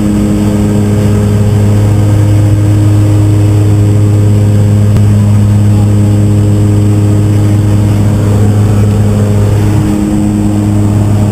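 Jump plane's engine drone heard from inside the cabin: a loud, steady hum with a strong low tone and several overtones, dipping slightly about ten seconds in.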